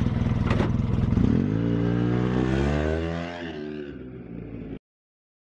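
Polaris RZR side-by-side's engine running and revving: its pitch climbs steadily, then levels off and eases back, and the sound cuts off suddenly near the end.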